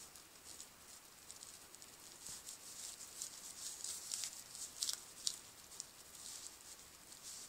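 A puppy chewing and pawing a crumpled wrapper, making irregular crinkling and rustling with a few sharper crackles about four to five seconds in.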